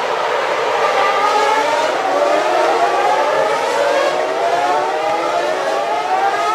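Racing car engines running at high revs over a noisy roar, their pitch climbing slowly and steadily.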